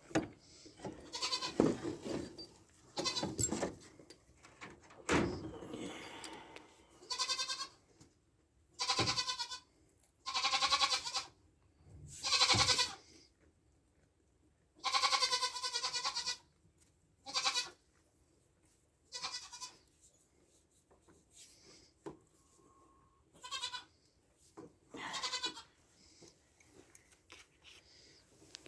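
Goats bleating over and over, more than a dozen quavering calls of about a second each, separated by short pauses.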